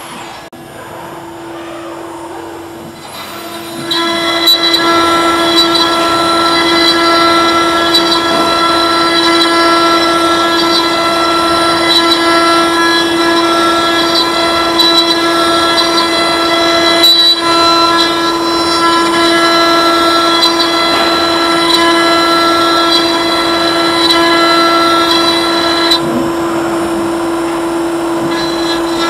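CNC router spindle running with a steady whine while the end mill engraves a star shape into a metal plate. About four seconds in it gets louder and harsher, with more overtones, and it eases slightly a few seconds before the end.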